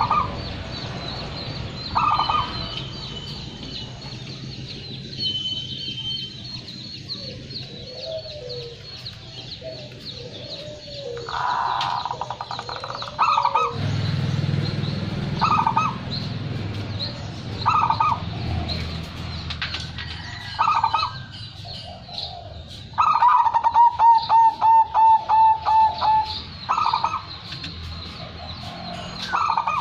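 Zebra dove (perkutut) cooing: short coos every couple of seconds, then a fast run of repeated staccato cooing notes about 23 seconds in.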